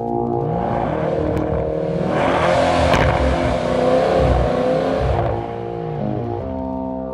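A car engine revving over background music with sustained brass-like chords; the engine swells through the middle and eases off about five seconds in.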